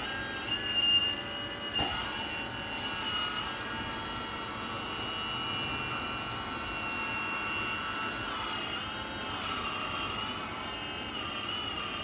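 Homemade 1/12 scale RC excavator running, its small motors giving a steady high whine that wavers and shifts in pitch about eight to nine seconds in as the machine works, with a short knock about two seconds in.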